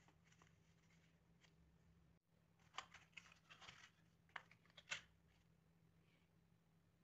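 Faint rustle and a quick run of sharp clicks as a small cardboard box of metal paper clips is opened and handled, lasting about two seconds around the middle; otherwise a faint low hum.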